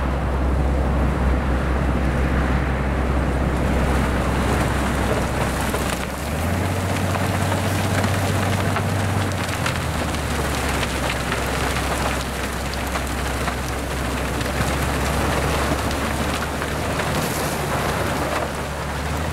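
Railway snow blower cutting through deep drifted snow: a steady rushing hiss of snow being thrown over a low engine drone. The engine note steps up about six seconds in and drops back a few seconds later.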